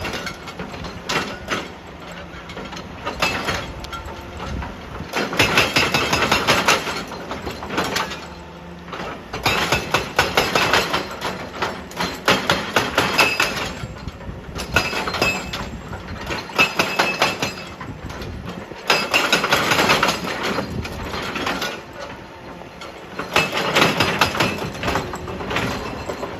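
Excavator-mounted hydraulic rock breaker hammering stone in repeated bursts of a second or two, with rapid impacts, separated by short pauses of machine running.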